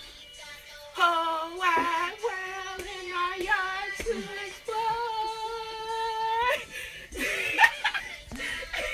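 A woman singing loudly in a high voice, short sliding phrases and then one long held note of about two seconds, followed by broken-up voices near the end.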